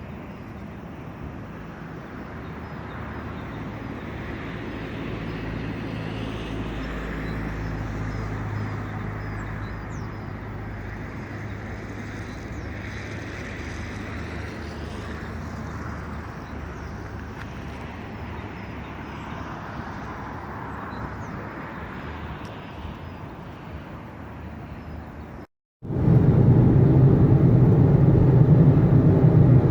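Outdoor traffic and street noise, a steady wash of passing vehicles. About 26 s in it cuts abruptly to a much louder, steady low rumble.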